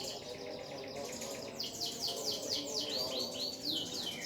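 Birds chirping: a fast, high trill, then from about a second and a half in a quick run of repeated downward-sweeping chirps.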